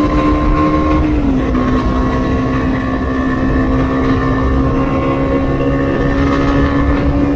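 Bajaj Dominar 250's single-cylinder engine through its stock exhaust, cruising at a steady highway speed over low wind and road noise. The engine note drops slightly about a second in, then holds steady.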